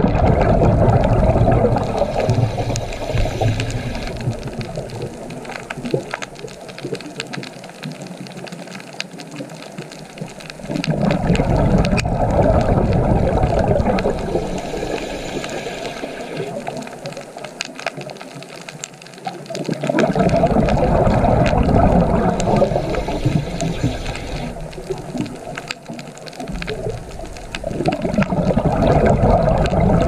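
Rushing water noise that swells and fades in slow surges about every nine seconds, with a deep rumble under each surge.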